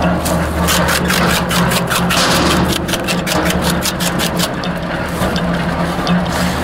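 Wood chipper running with a steady hum while a branch is fed in, the blades cutting it with rapid sharp cracks that come thick and fast for the first few seconds and then thin out.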